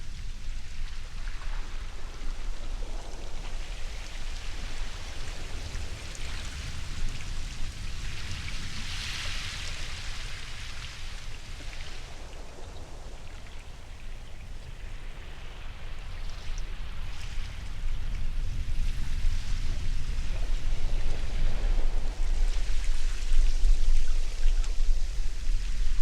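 Ocean surf: waves breaking and washing in, a hiss that swells and fades a few times over a steady low rumble, growing louder in the second half.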